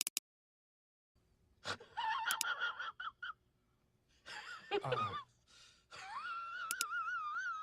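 A run of short, high-pitched, voice-like sound effects: two brief cries, then a longer warbling, wavering call near the end.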